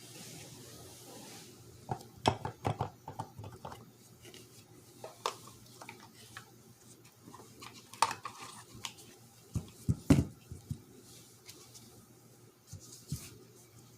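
Irregular clicks, clinks and knocks of small metal and plastic shifter parts being handled and fitted, with a cluster of sharper knocks about two to three seconds in and the loudest knocks around ten seconds in.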